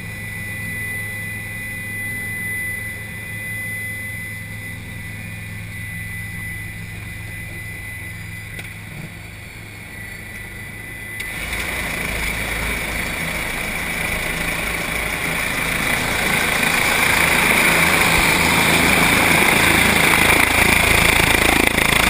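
Helicopter turbine and rotor running at idle after landing, at first muffled inside the cabin with a steady hum and a thin high whine. About eleven seconds in the cabin door opens and it turns suddenly into a much louder, open rush of turbine and rotor wash, growing louder still a few seconds later.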